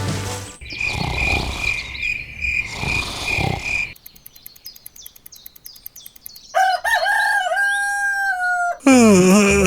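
A rooster crowing twice in the last three seconds, the second crow louder and falling in pitch. Before that comes a high, pulsing chirp, then a quieter stretch of rapid, even clicking.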